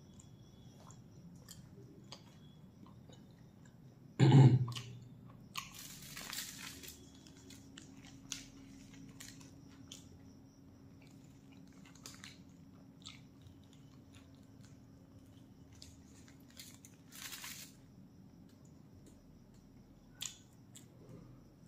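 A person chewing a mouthful of a large flatbread-wrapped roll close to the microphone, with soft moist chewing and scattered small crunches. About four seconds in comes a short, louder hum from the eater, falling in pitch.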